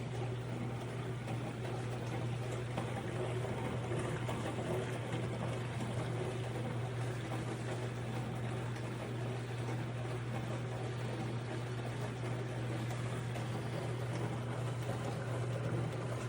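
HAVA tabletop dishwasher running a wash cycle: a steady hum from its pump motor under a constant rush of water spraying inside the tub.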